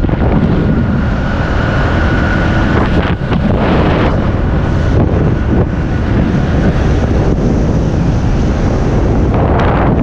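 Strong wind buffeting the microphone: a loud, steady rush of noise, heaviest in the low end.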